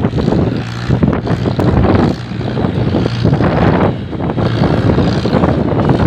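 Tractor diesel engine running steadily under load, pulling a loaded trolley, with gusts of wind rushing across the microphone.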